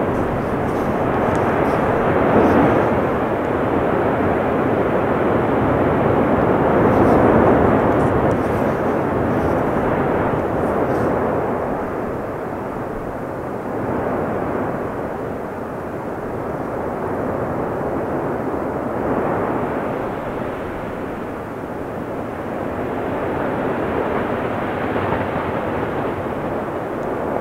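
Volcanic eruption giving off a continuous rushing roar that swells and eases every few seconds, with faint crackles in the first ten seconds or so.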